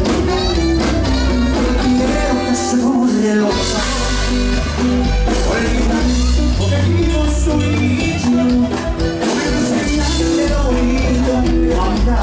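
A live band playing Latin American music, with a singer over electric guitar, bass and drums keeping a steady beat.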